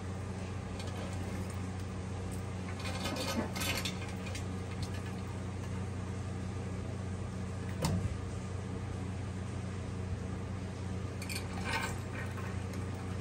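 A monitor lizard biting and working a large raw steak in its jaws: a few short clicks and knocks, a few seconds in, near the middle and near the end, over a steady low hum.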